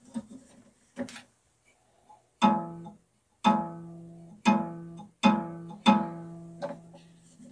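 Craftsman 10-inch three-wheel bandsaw blade, freshly tensioned, plucked by hand five times; each pluck gives a low, pitched twang that dies away over about a second, the ring of a blade under tension. Two light knocks come before the plucks in the first second.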